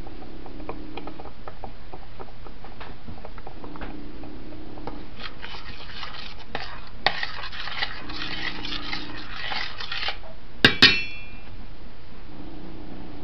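Metal spoon stirring thick sauce in a stainless steel saucepan, scraping and clinking against the pot for several seconds, then two sharp metallic clinks that ring briefly.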